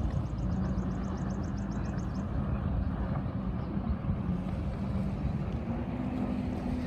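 Motorboat engine droning steadily across open water, its pitch stepping up slightly near the end. A fast high ticking series, about eight ticks a second, stops about two seconds in.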